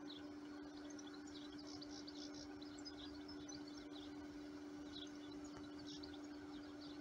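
Small birds chirping in scattered short calls over a faint steady hum.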